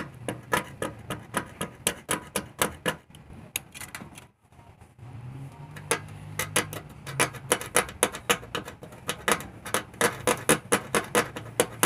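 Utility knife blade scraping and ticking on the LED backlight strip of a Samsung LCD TV: quick dry scratchy clicks, about three or four a second, stopping briefly about four seconds in and then resuming faster.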